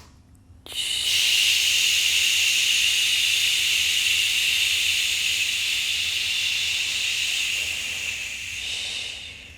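One long, steady breath of air hissing through the mouth, starting just under a second in and fading near the end. It is a slow, controlled breath taken during a held stretch.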